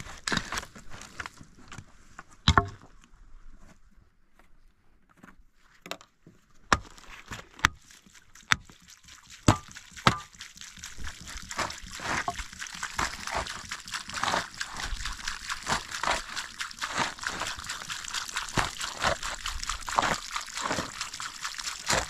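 Liquid sloshing and splashing in quick, irregular wet strokes, with a few separate knocks in the first half before the sloshing thickens into a dense, continuous run.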